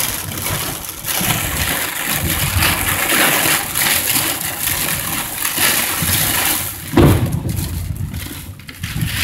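Heavy downpour pelting a moving car, heard from inside the cabin, with a loud low thump about seven seconds in.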